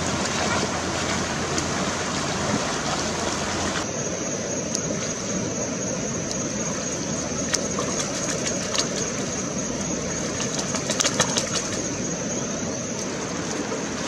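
Shallow stream water rushing steadily, with a few sharp splashes partway through and a short cluster of them later on.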